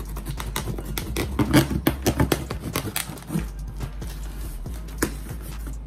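Kitchen knife slicing through packing tape on a cardboard shipping box: a run of scratchy clicks and crackles, loudest about a second and a half in, then lighter handling of the cardboard. Background music plays underneath.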